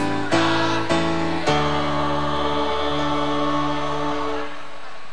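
Mixed school choir singing in harmony: a few short, accented chords, then one long held chord that stops about four and a half seconds in.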